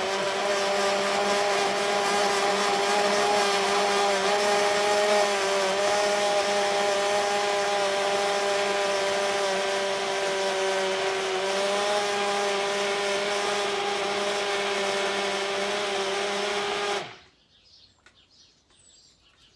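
Electric hand blender running steadily with a pitched motor whine, blending oat flakes and hot water into oat milk. It switches off abruptly about 17 seconds in.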